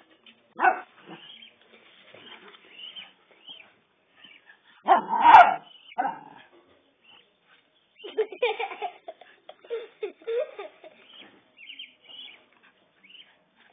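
Small dog barking and yipping in short bursts while playing at a duckling. One short bark comes early, the loudest bark about five seconds in, and a quick run of yips from about eight to eleven seconds.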